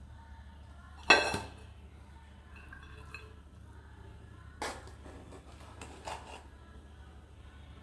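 Spoon and dishware clinking while biryani is served: one sharp, ringing clink about a second in, then two lighter clinks.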